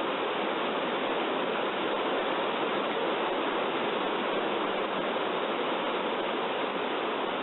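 Rushing river water: a steady, unbroken wash of water noise.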